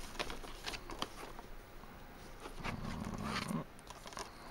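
Thin plastic DVD cases being handled and shuffled: scattered light clicks and taps, with a brief sliding scrape of case against case about two and a half seconds in, lasting about a second.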